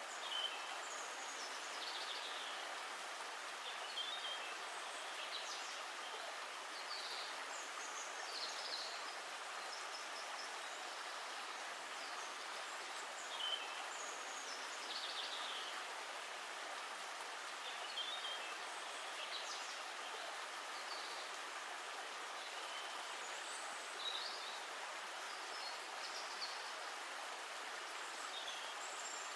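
Steady rush of flowing water, with short high bird chirps coming and going over it.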